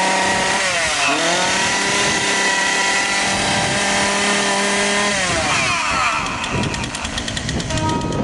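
Partner 340S two-stroke chainsaw revved to full throttle, dipping briefly about a second in, then held high and steady for about four seconds before dropping back to a steady idle near the end. With its clogged muffler screen removed, it takes full throttle without stalling and holds its idle.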